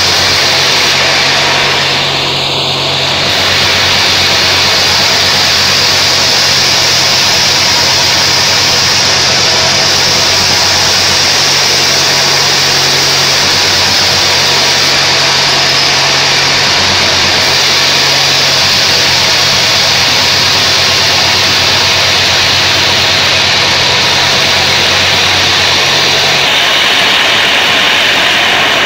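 Homemade bandsaw sawmill ripping a mahogany log into boards: a loud, steady hiss of the band blade cutting through the wood over a low machine hum.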